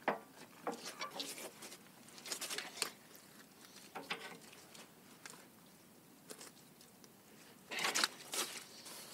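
Scattered light knocks and rustles of someone moving about and handling tools, with a louder cluster near the end.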